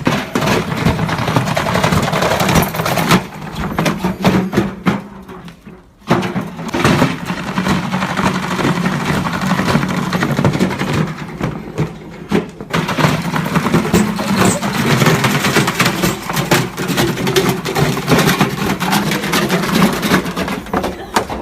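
Washing machine running hard with a steady motor hum and a dense rattling and knocking clatter; it dies down about three seconds in, picks up again around six seconds, dips once more near twelve seconds and then carries on.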